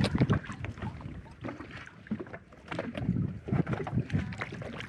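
Water slapping and splashing against a small boat's hull in uneven knocks, with wind on the microphone.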